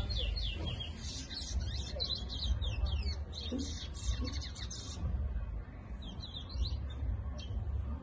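Caged towa towa (chestnut-bellied seed finch) singing a fast run of quick down-slurred whistled notes that stops about five seconds in, followed by a few scattered single notes. A steady low rumble runs underneath.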